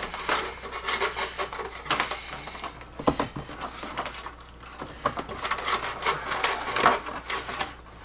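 Trailer-wiring wire pulled through a body grommet and along the plastic trim channel: irregular rubbing and scraping with light plastic clicks, busiest a little past the middle.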